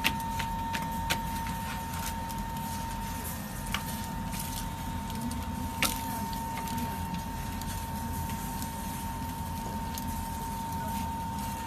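Steady mechanical hum with a constant thin whine, broken by several sharp clicks as metal kebab skewers are handled on a wooden board.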